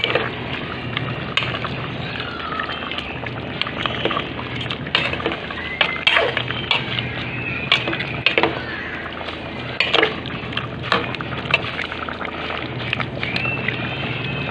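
A spoon stirring a thick tomato-sauce stew in an aluminium pot, clinking and scraping against the pot many times over the steady bubbling of the simmering sauce.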